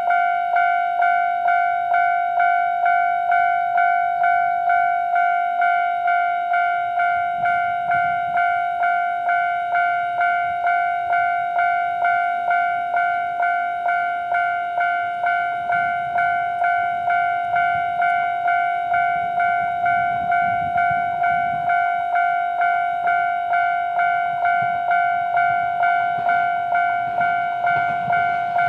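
Japanese level-crossing electronic warning bell ringing at its normal volume: one clear tone struck over and over, about one and a half times a second. The low rumble of an approaching train builds under it near the end.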